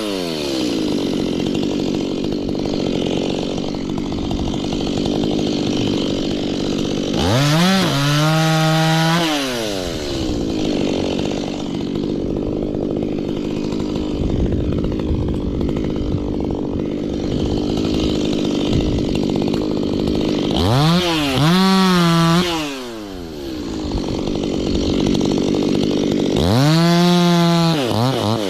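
Stihl chainsaw idling between cuts, revved up sharply three times, each rev held about two seconds before dropping back to idle.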